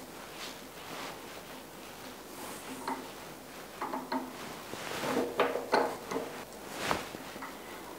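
Hand tapping: a T-handle tap wrench turning a spiral flute tap into an aluminium fixture, with scattered faint clicks and creaks of the tool and hands on the wrench.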